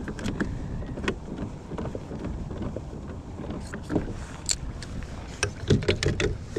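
Steady low rush of wind and water around a fishing kayak, with scattered sharp clicks and knocks, thickest in the last second or so, as a spinning rod is handled and set into a rod holder.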